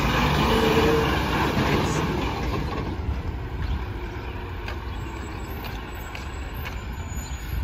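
Rear-loader garbage truck's diesel engine pulling away and driving off, its rumble loud at first and fading steadily after about two seconds as it recedes.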